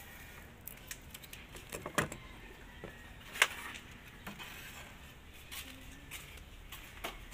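Scattered metallic clicks and clinks of a wrench and a car battery's negative terminal clamp being handled as the terminal is disconnected, with one sharp clank about three and a half seconds in.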